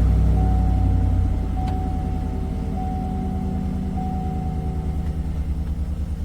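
Car engine idling just after starting, with an even pulsing beat; the revs ease down a little about a second in as it settles.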